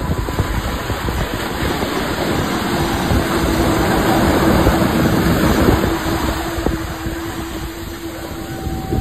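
Surf washing and wind buffeting the microphone, swelling louder around the middle as a wave breaks, with a steady low hum underneath from a few seconds in.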